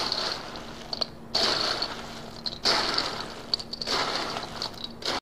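Popcorn coated in melted white chocolate being stirred in a large stainless steel bowl: four long rustling, scraping sweeps of about a second each, with a faint steady hum underneath.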